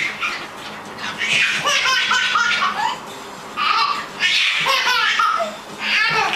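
High-pitched laughter, like a young child's, coming in several bursts.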